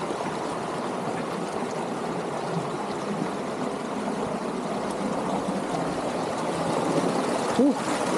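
Steady rushing of a river flowing over rocks. A brief pitched sound breaks in near the end.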